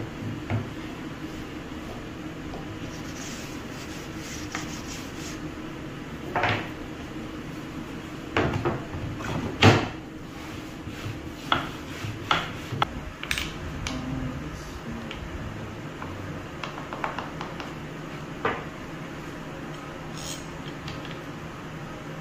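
Scattered knocks and clacks of plywood parts as a wooden rip fence is set onto a homemade mini table saw and slid into place, the loudest knock about ten seconds in, over a steady low hum.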